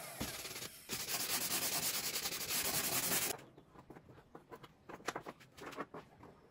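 Edge of a high-pressure laminate (HPL) tabletop being sanded by hand: a fast, dense run of rubbing strokes for a couple of seconds that stops abruptly a little past three seconds in, followed by faint, scattered scraping and rubbing at the corner.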